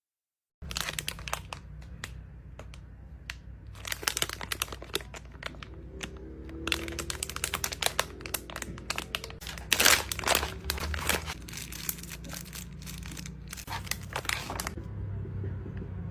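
Crunchy slime being squeezed and pressed by hand, giving a dense run of irregular crackles, pops and crinkling that starts about half a second in, with its loudest burst about ten seconds in.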